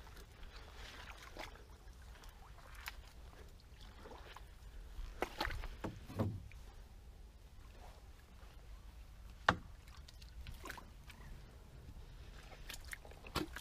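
Scattered knocks, scrapes and branch rustles as a small boat is handled and shifted through tamarisk brush at the water's edge, with a cluster of louder knocks near the middle and one sharp knock about two-thirds of the way through.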